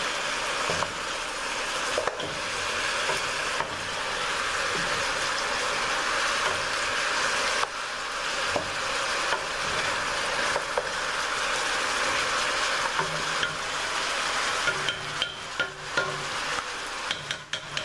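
Seasoned oxtails sizzling as they brown in hot oil in a pot, turned with a wooden spoon that scrapes and knocks against the pot. The knocks come more often near the end.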